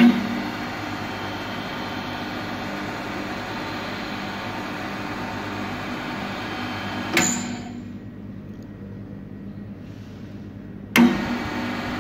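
The 2.2 kW electric motor of a Holzmann LBM 220 slot mortiser is switched on with a sharp click and runs with a steady hum. About seven seconds in it is switched off with a click and quiets as the spindle runs down, then near the end it is switched on again with another click.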